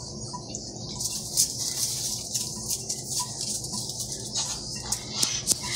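Muscovy duck preening its wet plumage with its bill: a steady rustling and crackling of feathers with many small ticks, and a few sharper clicks near the end.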